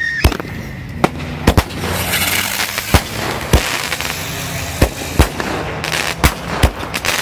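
Airborne 'Large Plane Flying at Night' flyer firework going off overhead: about ten sharp firecracker bangs at uneven intervals, with a stretch of crackling about two seconds in.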